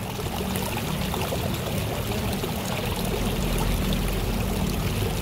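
Steady rush of running water, with a faint low hum underneath.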